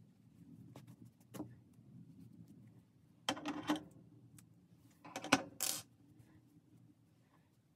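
Hand-sewing materials handled on a tabletop: a faint click about a second in, then two short bursts of rustling and clatter, the second the loudest.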